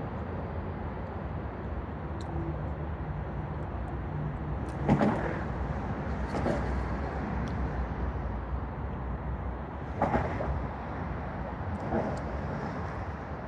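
Steady low rumble of road traffic, with a few short sharper sounds over it, the loudest about five seconds in.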